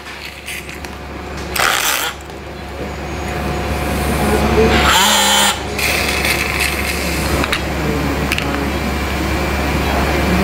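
Handheld surgical power tool run in short bursts during removal of a metal Nuss bar from the chest, over a steady low hum.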